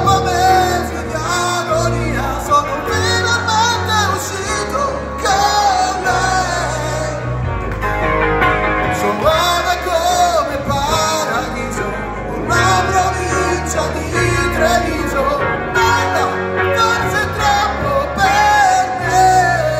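A rock band playing a song live, with a lead vocal melody sung over electric guitars, bass and drums.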